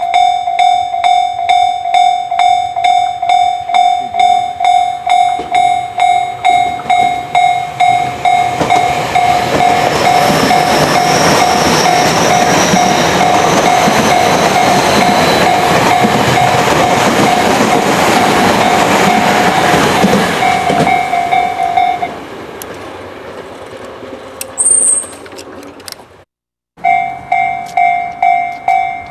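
Railway level-crossing warning bell ringing steadily, about two strokes a second, while a Tobu 50090-series electric train passes close by. The train's wheel and running noise swells from about a quarter of the way in and is the loudest sound until it fades about three-quarters through. The bell stops as the train clears and starts again after a cut near the end.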